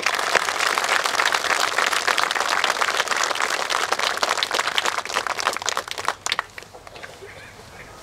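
Crowd applauding outdoors, a dense patter of many hands clapping that dies away about six seconds in.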